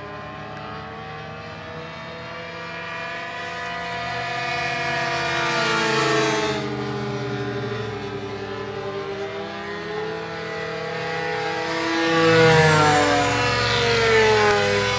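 Engines of two propeller-driven radio-controlled model airplanes buzzing in flight, their pitch rising and falling as the planes pass and change throttle. They are loudest about twelve seconds in.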